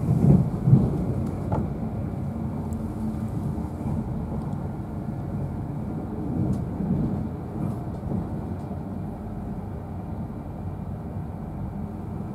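Interior of an InterCity 225 passenger coach running at speed: a steady low rumble of wheels on rail, with two louder bumps about half a second in and a smaller swell a little after six seconds.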